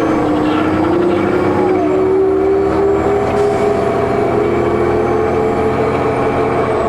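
Cummins ISL diesel engine of a 2004 New Flyer D40LF transit bus pulling steadily, its pitch climbing slowly over the first few seconds and then levelling off. A faint high turbocharger whine runs above the engine note.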